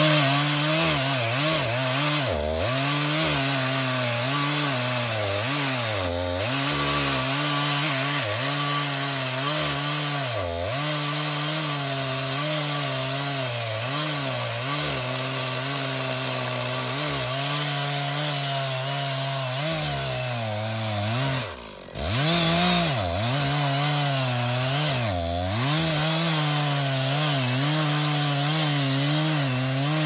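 Two-stroke chainsaw at full throttle cutting down through a thick block of firewood. Its engine pitch sags again and again as the chain bogs in the cut, then recovers. About 22 seconds in it drops off for a moment, then revs back up and carries on cutting.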